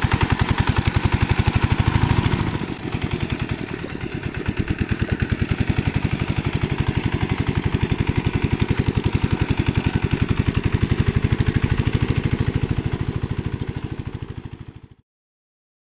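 Single-cylinder Kubota diesel engine of a two-wheel hand tractor running under load in a muddy rice paddy, a steady rapid chugging. It dips briefly about three seconds in and fades out near the end.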